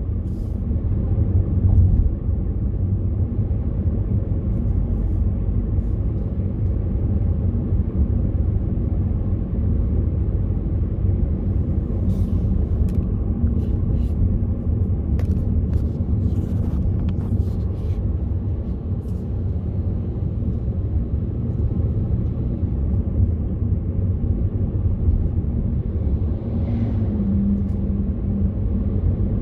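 Car interior road noise while driving: a steady low rumble of tyres and engine, with a few faint ticks around the middle. Near the end an oncoming car passes.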